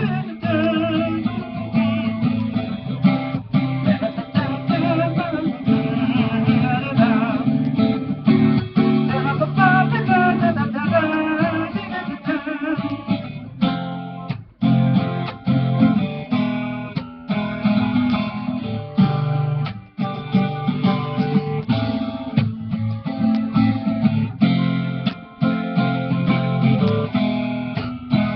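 Instrumental interlude on a strummed acoustic guitar, with a wavering lead melody over the chords for roughly the first dozen seconds.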